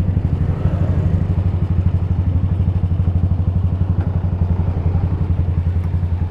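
Motorcycle engine running at low revs with a steady, even pulse as the bike rolls slowly through traffic.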